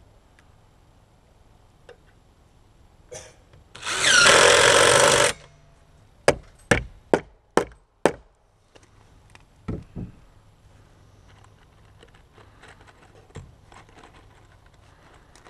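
A power saw making a short cut of about a second and a half, followed by five quick hammer blows, about two a second, and two more strikes soon after.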